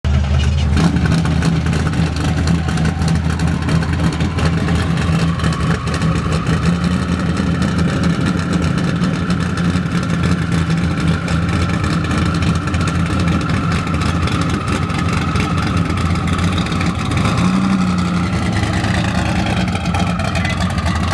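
Twin-turbocharged engine of a 1971 Chevrolet Impala idling steadily, with a short rise and fall in engine speed about seventeen seconds in.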